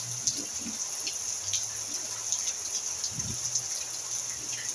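Steady rain falling on a roof and wet paving: an even hiss with many separate drops ticking close by.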